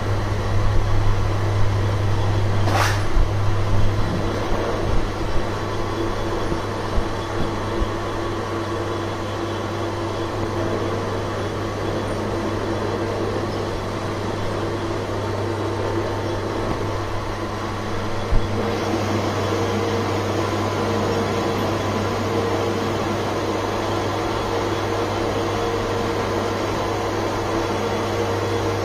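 Manual metal lathe running, its motor and spindle giving a steady hum while the tool cuts the turning workpiece. A few short clinks come in the first few seconds, and a single sharp knock about eighteen seconds in.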